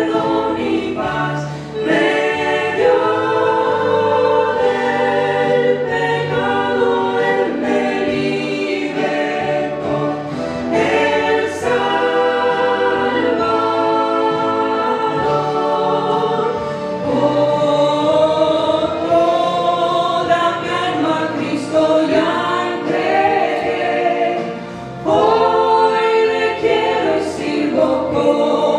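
Mixed voices of a family group (a man, a woman and three children) singing a Spanish-language hymn together in harmony through microphones.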